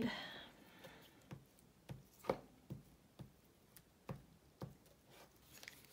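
About ten light, irregular clicks and taps as a glue stick and a paper strip are handled on a cutting mat.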